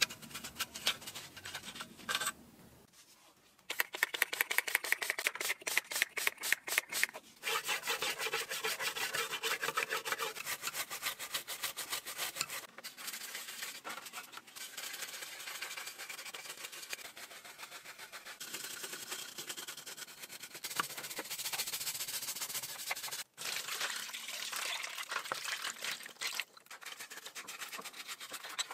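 A stiff brush scrubbing the plastic housing of a Makita 4190D cordless circular saw in soapy water, in quick back-and-forth strokes that clean off rust and grime from water corrosion. It stops briefly a few times.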